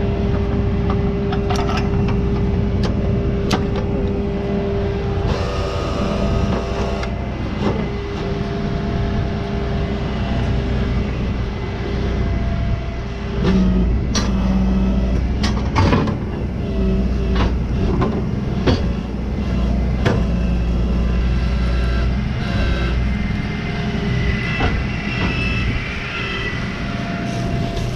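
Heavy-duty diesel tow truck running steadily, with a steady tone over the rumble for the first ten seconds or so and several sharp knocks in the middle.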